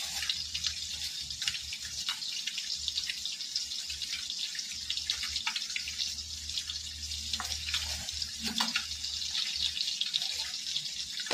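Fish pieces frying in hot oil in a kadai: a steady sizzle with many small crackles and pops, over a low hum.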